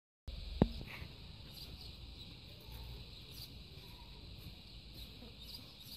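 Outdoor ambience with a steady high-pitched insect buzz, broken by a single sharp knock about half a second in.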